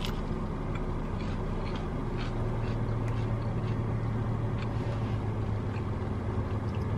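Steady low hum of an idling car, heard from inside the cabin, with faint small clicks and rustles of someone eating.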